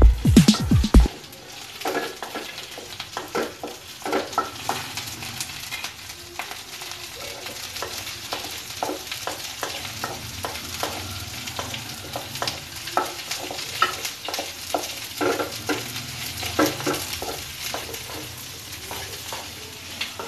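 Cut okra sautéing in hot oil in a metal kadai, with a steady sizzle, while a wooden spatula stirs it with irregular scrapes and knocks against the pan. A burst of music cuts off about a second in.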